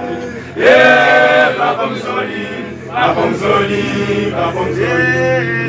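A church choir singing a Swahili hymn together, chanting a short phrase over and over. The voices swell about a second in.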